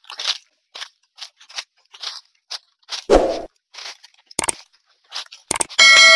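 Footsteps crunching and rustling through thick dry leaf litter on a slope, a step every third to half second, with a heavier thump about three seconds in. Near the end come a couple of sharp clicks and then a bright ringing chime, the sound effect of an on-screen subscribe-button and bell animation.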